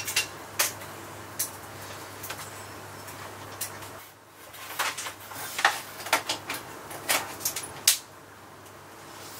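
Scattered clinks and knocks of metal parts and tools being picked up, moved and set down on a workbench, with a faint low hum that stops about four seconds in.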